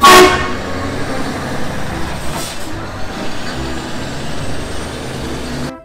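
Heavy semi-trailer truck's diesel engine running with a steady low rumble as the truck drives past, opened by a loud, short burst that fades within half a second.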